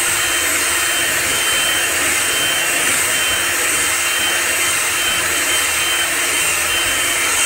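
Electric hand mixer running steadily at speed, a high steady whir with a thin whine, its beaters whisking cake batter in a metal bowl.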